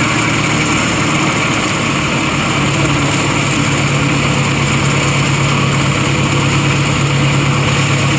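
Engine of a Chance Rides miniature amusement-park train locomotive running steadily, a constant low drone.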